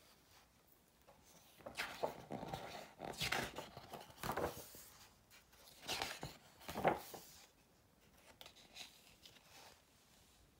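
Pages of a photo book being turned by hand: a run of papery swishes and rustles, loudest in the first seven seconds, then a few fainter ones.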